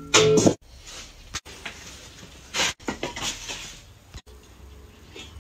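Scattered rustling and soft knocks from tending the firebox of a wood-fired brick stove, with a short louder sound right at the start.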